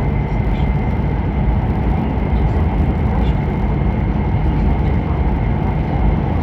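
Steady running noise heard inside the cabin of an E5 series Shinkansen car: a deep, even rumble and rush, with a faint steady high tone above it.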